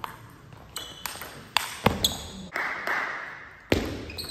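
Table tennis ball struck by rubber-faced bats and bouncing on the table during a rally: quick sharp clicks about every half second, with a short stretch of noise in the middle and a heavier knock near the end.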